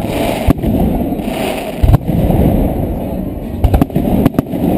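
Fireworks display: aerial shells bursting overhead in several sharp bangs over a continuous muffled din of further bursts and crackle.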